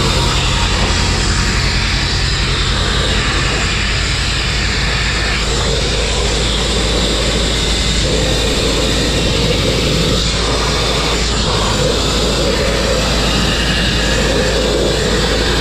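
Abrasive grit-blasting nozzle running continuously: a loud, steady rush of compressed air and grit striking the steel of a truck axle and brake drum, over a constant low hum.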